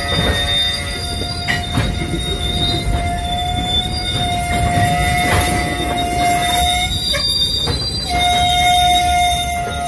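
Freight train of tank cars rolling past, wheels rumbling on the rails with occasional clicks at the rail joints. A sustained high-pitched wheel squeal runs through it and drops out briefly near the end.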